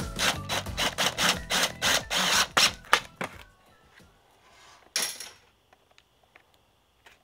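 Cordless drill driving a screw through a foam pool noodle into an OSB wall, giving a loud rapid run of clicks, about three to four a second, that stops about three and a half seconds in. A short scraping rustle follows about five seconds in.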